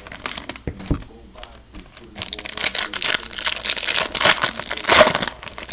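Foil trading-card pack wrappers crinkling and crackling in the hands as Topps Chrome packs are handled and opened, with a dull thump about a second in.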